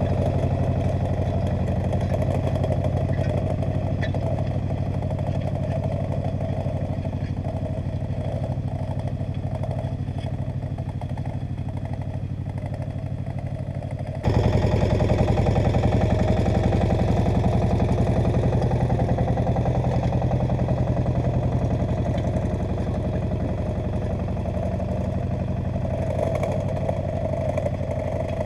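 Agria 8900 articulated tractor's Lombardini diesel engine running steadily under load while it pulls a disc harrow through the field. About halfway through, the sound jumps suddenly louder.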